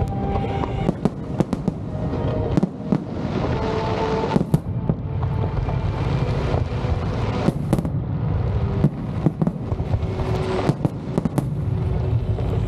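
Fireworks display: many shells bursting in quick succession over a continuous low rumble.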